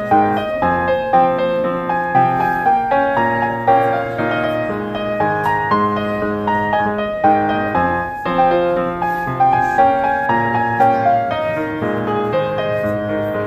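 Background instrumental music with a gentle piano melody of overlapping notes.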